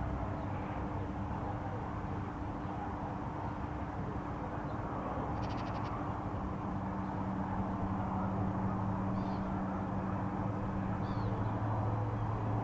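Steady low droning hum from the sky, with a deeper tone joining about halfway through. A few short bird chirps and a quick rattle of clicks sound over it.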